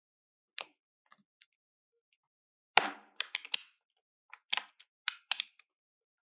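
Utility knife blade cutting the plastic nozzle off a syringe: a string of sharp clicks and cracks, sparse at first, then a quick cluster about halfway and another near the end as the tip cuts through.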